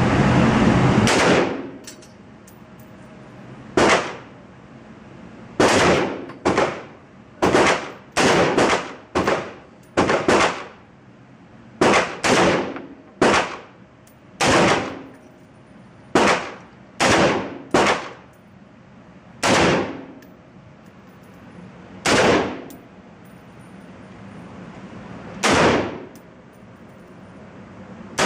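Crusader Broadsword .308 semi-automatic rifle fired at an indoor range: about twenty shots at an uneven pace, some in quick pairs and short strings, each crack trailing a brief echo off the range walls. It opens with about a second of loud rushing noise.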